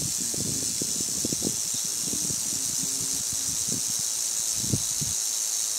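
Timber rattlesnake rattling in a steady high buzz that does not let up. A single knock sounds near the end.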